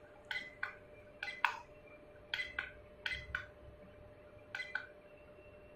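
Camcorder buttons pressed repeatedly while paging through stored pictures and videos: about ten short, sharp clicks, mostly in quick pairs, spread over the first five seconds.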